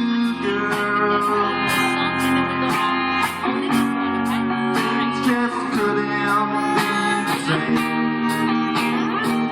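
Instrumental band music, guitar-led, over a steady drum beat and a held low note.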